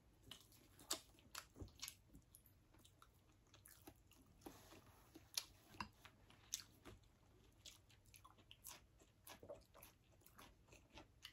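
Faint, close chewing by two people eating, with irregular small crunches and wet mouth clicks.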